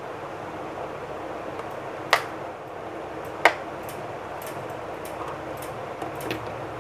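Two sharp clicks about a second and a half apart as small paint jars and their lids are handled on a glass tabletop, over a steady background hiss, with a few fainter ticks near the end.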